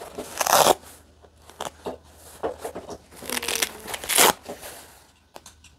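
Removable patches being peeled off and pressed back onto a felt laptop sleeve: two short tearing noises, with light taps and handling between them.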